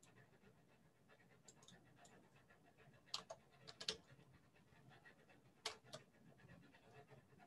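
Near silence, with a few faint short clicks about three seconds in and again near six seconds.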